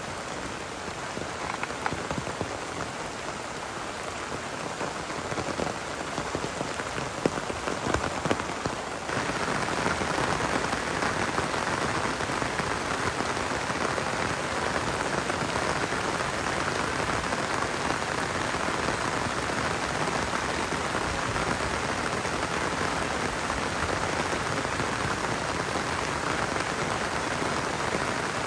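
Heavy rain falling, with separate drops heard hitting surfaces. About nine seconds in it turns suddenly louder and denser, a steady hiss of rain.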